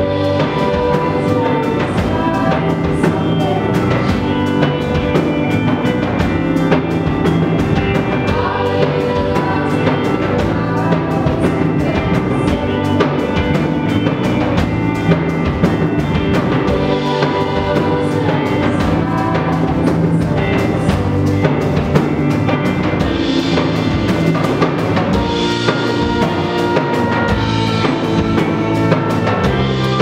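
A live band playing a song: a drum kit keeps a steady beat under electric guitar and bass guitar.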